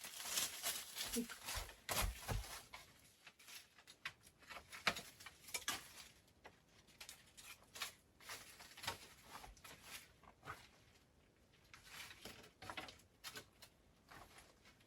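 Irregular light rustles, taps and scrapes, denser in the first half and sparser towards the end.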